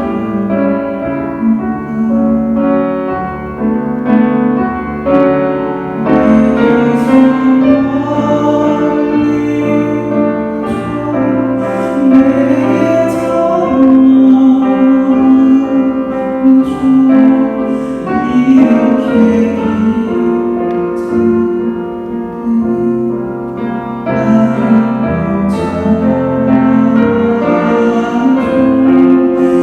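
Male vocalist singing a slow ballad with piano accompaniment.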